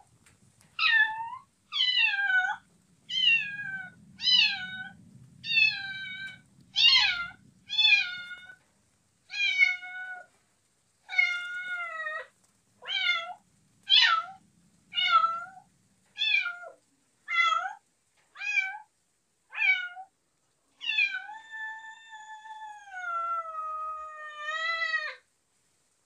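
Kitten meowing over and over in short high-pitched calls, about one a second, ending with one long drawn-out meow of about four seconds.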